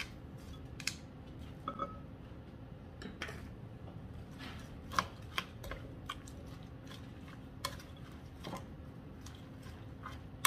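Red silicone spatula stirring shredded cabbage, sliced bacon and beaten egg in a glass bowl: soft moist rustling with scattered light taps and scrapes against the glass.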